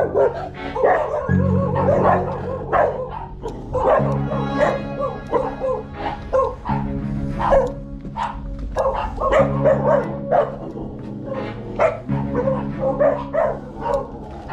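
Dogs barking repeatedly over music with a bass line that repeats about every three seconds.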